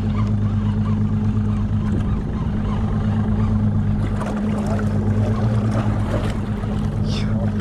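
Boat engine running steadily with a low hum, under wind and water noise.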